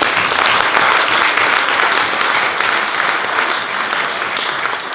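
A room full of guests clapping, loud and dense, easing off slightly toward the end.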